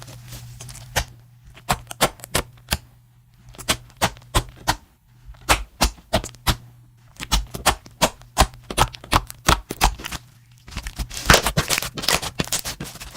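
Slime being worked by hand, giving a run of sharp, sticky clicks and pops from trapped air, with a denser crackling squish about three-quarters of the way in. A faint steady low hum runs underneath.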